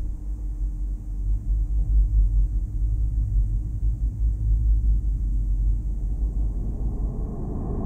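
Deep, unevenly pulsing low rumble, a horror sound-design effect, with a faint high hiss over it.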